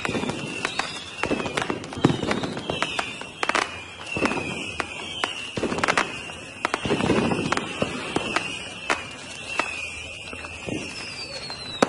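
Fireworks going off: many sharp bangs and crackles mixed with deeper booms, over a high whistling tone that keeps dipping in pitch, and a falling whistle near the end.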